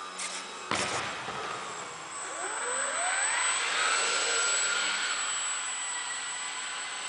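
Small electric motor and propeller of an F3P indoor aerobatic model plane, its whine rising in pitch as the throttle opens a little past two seconds in, then holding steady and easing off. A sharp knock about a second in.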